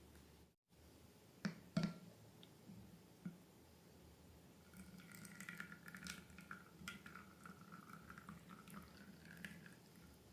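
Faint wet squishing of slime being handled, a run of small sticky clicks and crackles through the second half, after two sharp clicks in the first two seconds.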